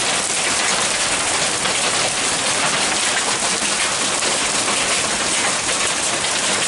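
Hailstorm: hailstones and rain pelting down in a dense, steady patter of many small impacts.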